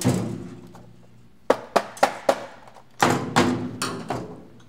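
A plastic LCD projector case handled on a steel workbench: a thunk with a short ringing as it is tipped up, a few sharp clicks about a second and a half in, then another thunk with ringing about three seconds in as it is set back down.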